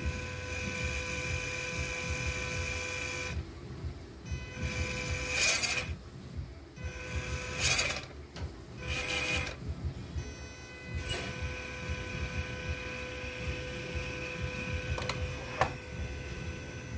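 MN Model D90 (MN99) RC crawler's electric motor and gear drivetrain whining as the throttle is worked with the wheels spinning freely in the air. The whine stops and starts several times, with two short, louder surges of higher revs.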